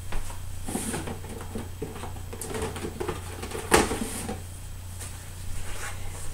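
Someone rummaging through craft supplies for a ribbon: scattered soft clicks and knocks of things being handled and moved, with one sharp knock nearly four seconds in.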